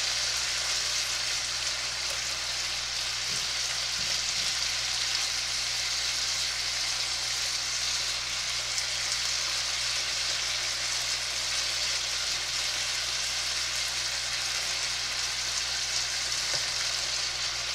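Chopped beef frying in a skillet in its own released juices, a steady sizzle, while a spatula stirs and breaks it up.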